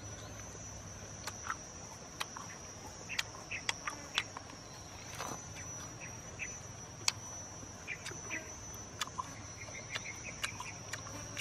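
A steady high-pitched insect drone, with irregular sharp clicks and short crackles scattered over it.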